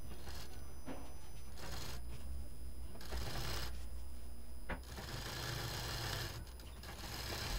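Cloth rustling and sliding as a quilted fabric panel and its piping are handled at a sewing machine, in several short spells, over a low steady hum.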